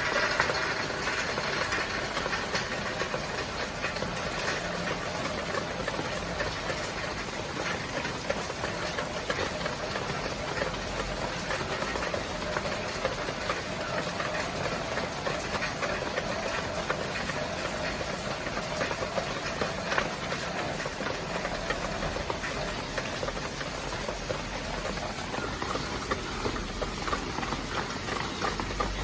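Heavy rain falling steadily, an even hiss flecked with fine drop impacts.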